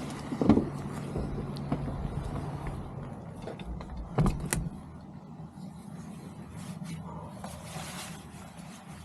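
A vehicle engine running steadily at idle, with a few sharp clicks and knocks in the first half.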